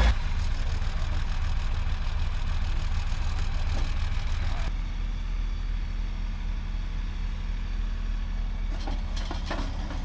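An engine running steadily at a low idle, with a few short knocks near the end.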